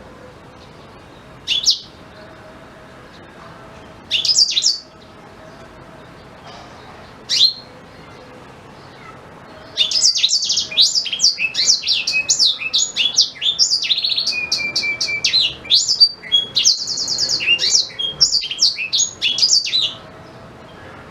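Black-throated canary (blackthroat) giving a few short high chirps, then about ten seconds of fast, varied song from about ten seconds in, with a rapid trill near the end.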